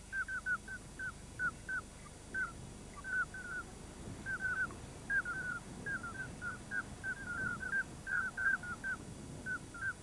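A flock of ducks calling: many short piping notes, often in quick runs of two to four, over a steady low rumble.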